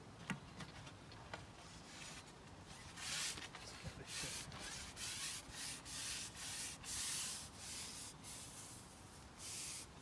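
A fishing pole being shipped out, its sections sliding through the angler's hands: a string of short, rough rubbing hisses, starting about two and a half seconds in and coming irregularly.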